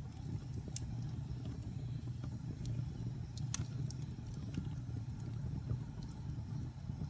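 Wood fire burning in a fireplace: a steady low rumble of flames with scattered sharp crackles and pops, the loudest pop about three and a half seconds in.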